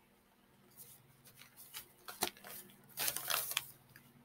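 Lined notebook paper being handled and rustled: a run of short, soft scrapes and a sharp click about two seconds in, then a longer rustle about three seconds in.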